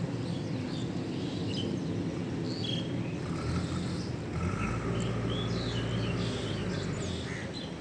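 Outdoor ambience: a steady low rumble with many short, high chirps over it, and a louder low swell about halfway through.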